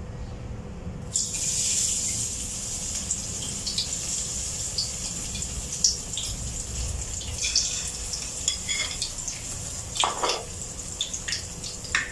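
Egg-battered eggplant pieces sizzling in hot cooking oil in a wok. The sizzle starts suddenly about a second in as the pieces go into the oil, and keeps going with scattered pops and crackles.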